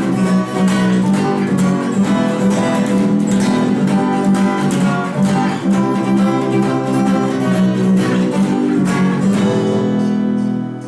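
Acoustic guitar strummed in a steady rhythm, playing a song without singing. A chord is held and left ringing near the end.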